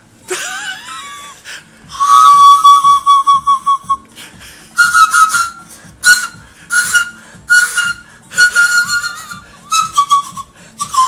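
Small pan flute (nai) being blown: one long held note about two seconds in, then a run of six or seven short, higher, breathy notes.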